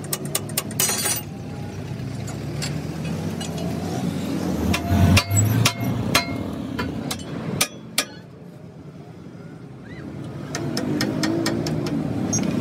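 Sharp metal clinks and knocks of steel tools and a long steel bar against a truck's rear axle housing. There is a quick run of taps in the first second and a few heavier knocks about five seconds in, over the low hum of a running engine.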